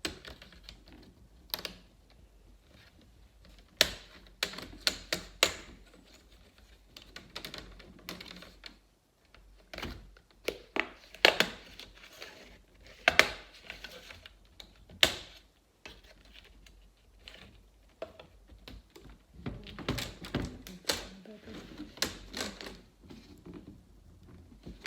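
Plastic screen bezel of an HP TouchSmart laptop being pried off with a guitar pick: irregular sharp clicks and snaps as its plastic tabs pop loose, some coming in quick runs.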